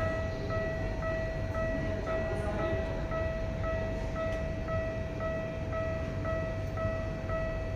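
Miniature Japanese railroad crossing alarm ringing its repeating kan-kan, about two strikes a second over a steady tone.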